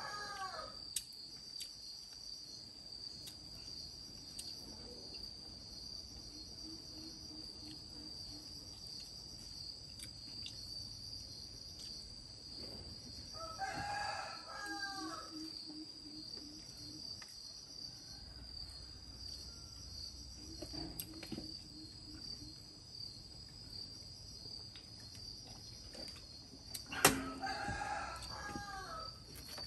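A rooster crowing twice, once near the middle and once near the end, each crow a pitched call of about a second and a half, over a steady high-pitched insect drone. A sharp knock comes just before the second crow and is the loudest sound.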